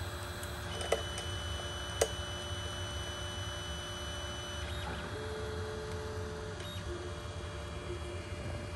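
LotMaxx SC-10 Shark dual-extruder 3D printer running through a filament colour switch mid-print: a steady fan hum, two sharp clicks about one and two seconds in, and thin steady whines that come and go.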